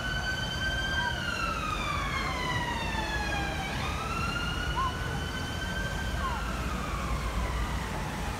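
Emergency vehicle siren wailing: its pitch holds high, glides slowly down, leaps back up about four seconds in, then sinks again near the end. A low rumble of traffic runs underneath.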